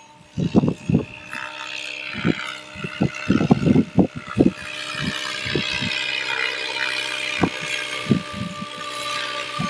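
Radio-controlled model helicopter flying, its rotor and motor giving a steady whine that grows louder through the second half as it comes closer. Irregular low thumps are heard through the first half.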